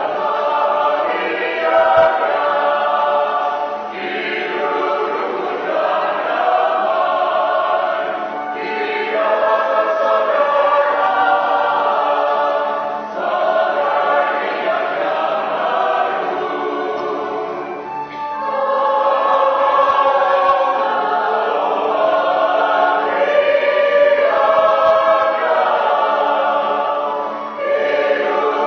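A choir singing a hymn-like song in long held phrases, with brief breaths between phrases every four or five seconds.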